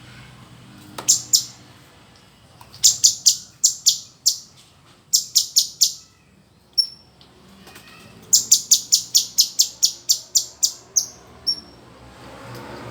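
Male cucak cungkok singing in bouts of rapid, sharp, high repeated chipping notes separated by short pauses, with a few short falling whistles between the bouts.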